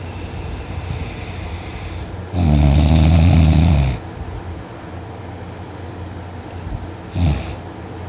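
A woman snoring loudly in her sleep: one long, heavy snore lasting about a second and a half, starting about two seconds in, then a short snore near the end, with quieter breathing between.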